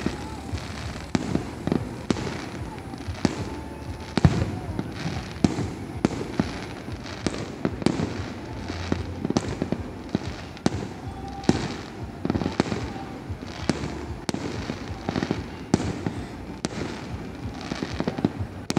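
Fireworks display going off in a rapid, irregular series of sharp bangs and crackles, several a second.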